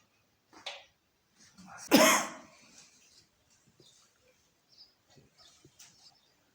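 A person's short, sudden vocal outburst about two seconds in, loud at first and dying away within half a second, with faint rustles and clicks before and after it.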